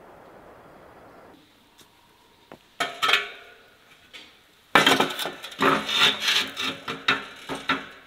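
A soft steady hiss for the first second or so, then metal scraping and clanking as a steel-framed wire-mesh fire basket is handled on its round steel base. The scrapes have a ringing metallic tone and come thick and fast from about five seconds in.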